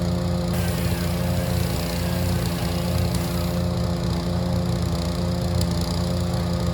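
Wood chipper running steadily at constant speed, with a few sharp cracks of wood going through the cutter late on.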